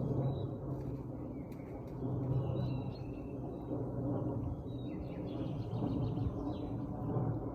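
Small birds chirping and trilling in short phrases over a steady low background rumble.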